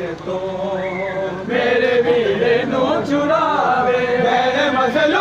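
A group of men chanting a noha, a Shia lament, together, the sound growing louder about a second and a half in.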